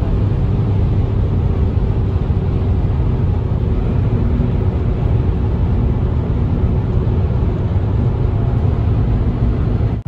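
Steady low rumble of road and engine noise inside a moving car's cabin at speed: tyres on tarmac with a faint even hum.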